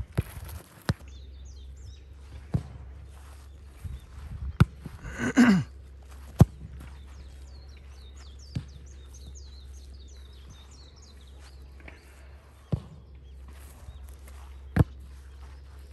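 Soccer ball kicked back and forth on grass: about eight sharp thuds, a couple of seconds apart. A short shout with a falling pitch about five seconds in, and birds chirping faintly.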